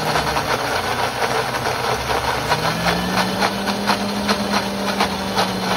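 Countertop blender motor running, blending avocado, cilantro and sour cream into a creamy guacamole. The motor hums steadily and rises a little in pitch about two and a half seconds in, with rapid ticking from the jar throughout.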